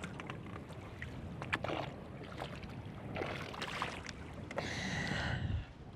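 Choppy water slapping against the hull of a small fishing boat, with wind and scattered light clicks and knocks.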